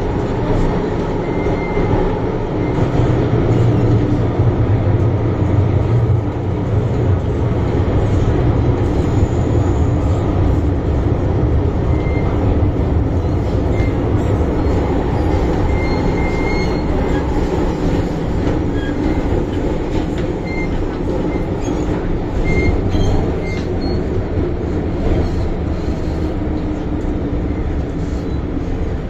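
Hong Kong MTR Island Line M-Train (first-generation Metro-Cammell electric multiple unit) heard from inside the car while running through a tunnel: a steady, loud rumble of wheels on rail and running gear, heaviest in the first third. Now and then there is a brief faint wheel squeal.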